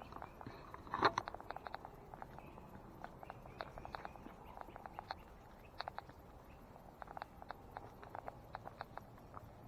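Footsteps crunching along a woodland trail: a run of short, irregular crunches, with one louder crunch about a second in.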